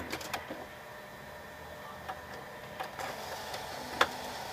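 HP Color LaserJet Pro MFP M176n laser printer at work: a run of clicks and ticks from its mechanism, then its motors running steadily from about three seconds in, with one sharp click near the end.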